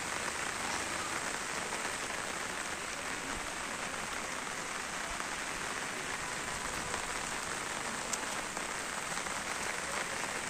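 Steady heavy rain falling on wet roads and standing floodwater.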